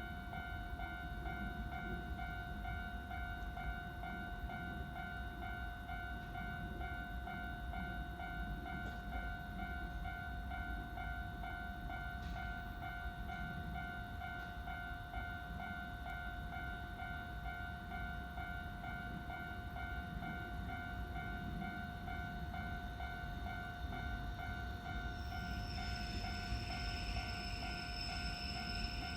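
Japanese level-crossing alarm ringing, its electronic bell tone repeating rapidly and evenly, over the low rumble of a train. A high-pitched squeal joins in near the end.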